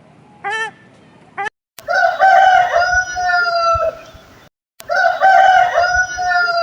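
A rooster crowing twice, each crow about two seconds long and tailing off at the end. Before it comes a single short waterfowl honk.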